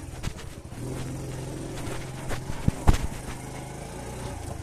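Motorcycle engine running steadily at low speed, heard muffled from a phone in the rider's pocket, with a few knocks and one sharp thump about three seconds in.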